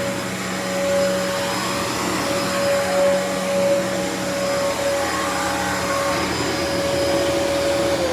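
Dyson DC28 upright vacuum cleaner running steadily, its motor giving a constant whine over a rush of airflow noise.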